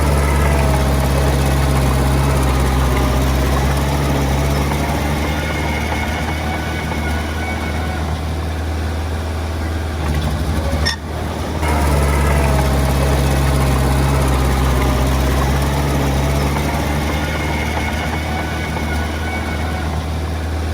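Heavy-equipment diesel engine running steadily, with a short drop about eleven seconds in before it carries on.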